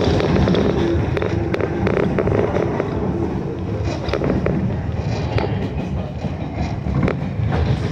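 Heritage passenger train rolling along the track, heard from inside the car: a steady rumble with irregular clicks and clacks from the wheels and rails.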